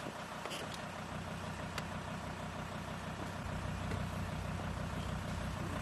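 A faint steady low hum, with a few soft knocks in the first two seconds as a person climbs onto a car's back seat.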